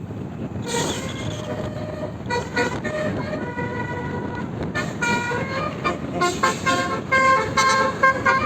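Bus telolet horn, a multi-tone Basuri air horn, playing a tune: a few held notes from about a second in, then a quick run of short notes jumping between pitches, over the steady rumble of the bus.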